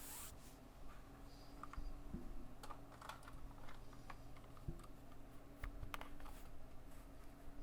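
Typing on a stock Anne Pro 2 mechanical keyboard with Kailh Box Red linear switches: individual keystrokes clack at an uneven, unhurried pace.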